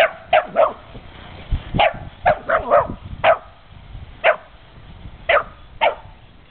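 Dog barking: about eleven short, sharp barks at uneven intervals, each dropping in pitch.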